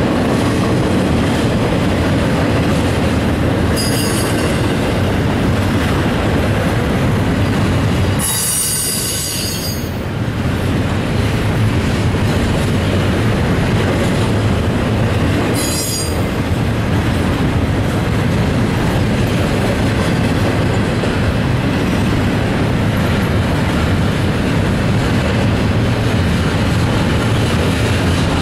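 Union Pacific double-stack intermodal freight cars rolling steadily past, their wheels rumbling on the rails. High-pitched wheel squeal cuts in briefly about four seconds in, most strongly for a second or so around nine seconds in, and again near sixteen seconds.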